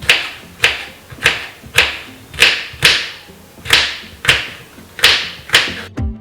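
Background music with a sharp clap-like beat about every 0.6 s over a low bass line; near the end it switches to a plucked-string tune.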